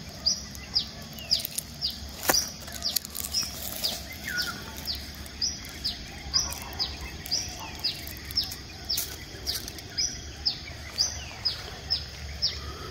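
A bird calling over and over, each call a short high note falling in pitch, about two a second, over a faint low hum.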